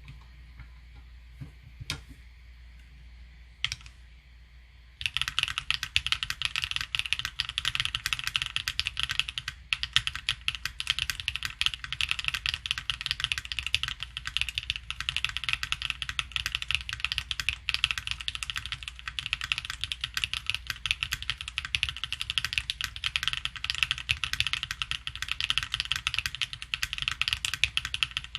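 Keyboard sound test: fast, continuous typing on a Sinanju keyboard with stock Leobog Kayking switches in an FR4-aluminium hybrid plate, o-ring mounted. It starts about five seconds in, after a few isolated key clicks.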